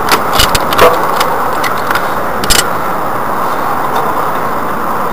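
Sharp metal clicks and knocks of a wrench on the rear axle's filler plug as it is loosened: several in the first second and one more about two and a half seconds in, over a steady hiss.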